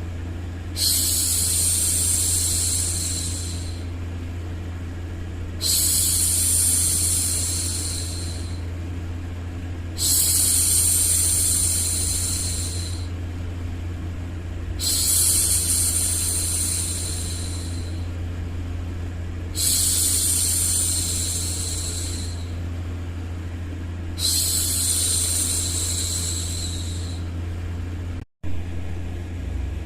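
A woman's voice shushing, long drawn-out "shhh" hushes repeated six times about every five seconds, over a steady low white-noise rumble. The sound cuts out for an instant near the end.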